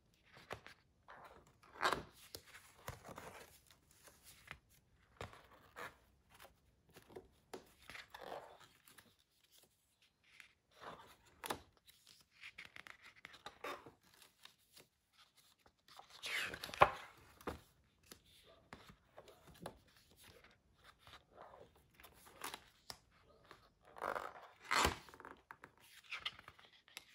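Paper pages of a spiral-bound sketchbook being turned by hand: rustling and sliding paper, with three louder page flips, about two seconds in, around the middle and near the end.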